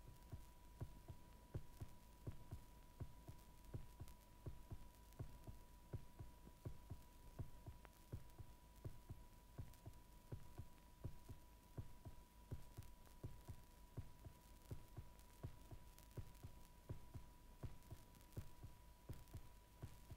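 Near silence: faint, rapid clicks and low thumps, about two or three a second, with a faint steady high tone.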